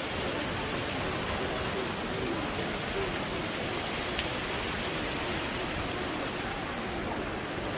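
Steady, even hiss of rain falling and fountain water splashing, with no let-up.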